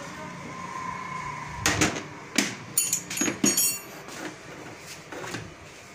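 Tools and metal parts clicking and clinking at a scooter's carburettor as it is worked loose: a quick cluster of sharp knocks and clinks about two to four seconds in, some with a brief metallic ring, and one more near the end, over a faint steady hum.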